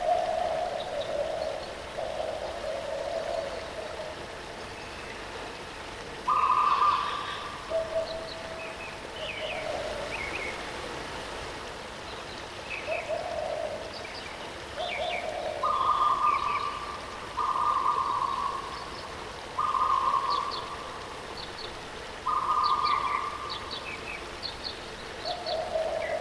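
Waterfall rushing steadily, with birds calling over it: repeated flat whistled notes about a second long, alternating between a higher and a lower pitch, and scattered short high chirps.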